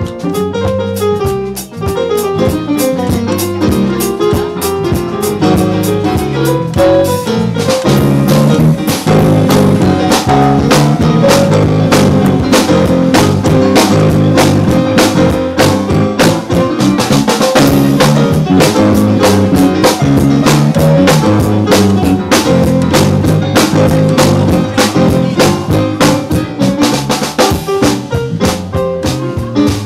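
A live jazz-style band playing an instrumental: a Sonor drum kit keeps a busy beat with cymbals over electric bass and keyboard. The playing builds up and gets louder about two seconds in.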